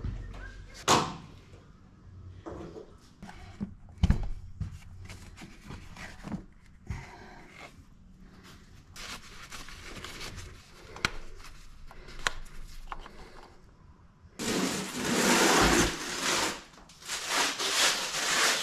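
Scattered clicks and knocks of hands working under a car's hood, then sheets of cardboard scraping and sliding across a garage floor as they are laid out to catch oil spills, in two loud stretches of a couple of seconds each near the end.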